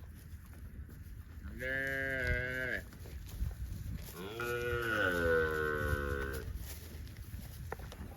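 Cow mooing twice: a moo of about a second, then a longer moo of about two seconds.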